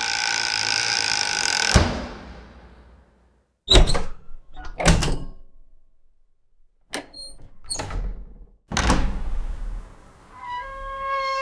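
Door sound effects: a long creak held on one pitch that ends in a thunk, then several sharp clicks and knocks of a handle and latch, a heavier thud, and another creak starting near the end.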